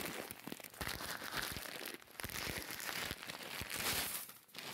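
Crinkling and rustling of a 50 lb plastic bag of chicken layer feed being lifted and loaded into a shopping cart, with several dull thumps as it is handled and set down.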